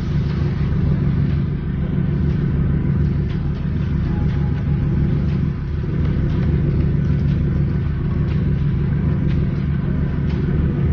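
Ferry engine droning steadily, with water rushing along the hull.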